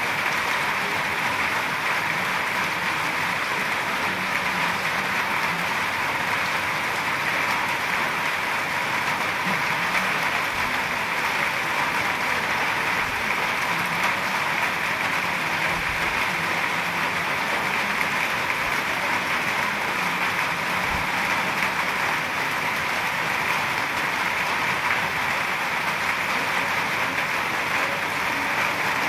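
Heavy rain falling steadily: a dense, even hiss of drops that does not let up.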